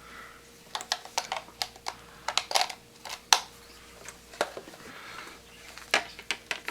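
Irregular clicks and knocks as small guitar gear is handled: a portable effects unit, a belt-clip mini amplifier and their cable plugs being picked up, plugged in and set down.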